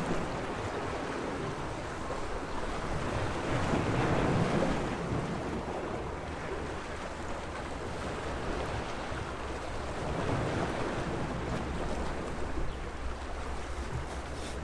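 Small sea waves washing against the shore, a rising and falling rush that swells about four seconds in and again near ten seconds, over a steady low rumble.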